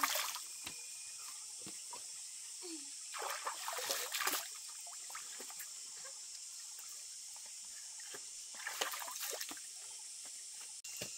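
Shallow stream trickling steadily over rocks, with water scooped by hand and splashed onto a face three times: briefly at the start, for about a second some three seconds in, and again near the end.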